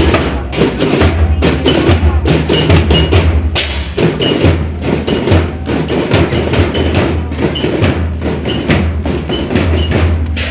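Loud music with heavy, sustained bass notes and busy, fast percussion, played through a large parade sound-system rig (sound horeg).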